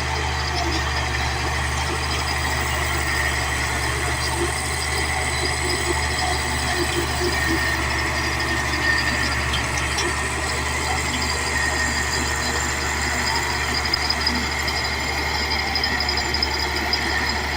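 Caterpillar D8 bulldozer's diesel engine running steadily, with a steady high whine over the low engine note.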